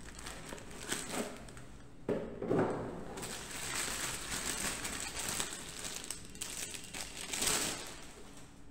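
Packaging being handled: a cardboard box rustles, then a clear plastic bag crinkles, more densely in the middle stretch, as a small plastic-cased electronic controller is slid out of it.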